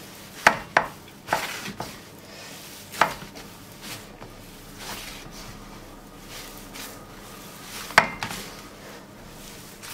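Hands kneading a bulgur and flour dough in a perforated metal tray: a soft pressing and rustling, broken by a handful of sharp knocks against the metal tray, the loudest about half a second in and again at about eight seconds.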